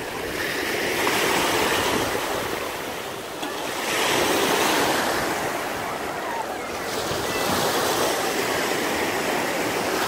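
Small sea waves breaking on a sandy shore, the surf swelling and easing about every three seconds.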